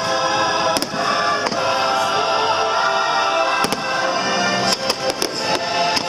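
Fireworks bursting over loud show music: sharp bangs about a second in, again near four seconds, and a quick cluster near five seconds.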